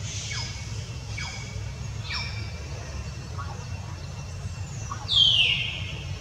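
Newborn kittens giving thin, high squeaking mews that fall in pitch, a few short ones and then a louder, longer one about five seconds in, over a steady low rumble.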